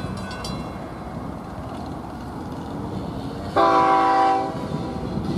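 Train horn blowing one blast of about a second, several tones sounding together as a chord, about three and a half seconds in.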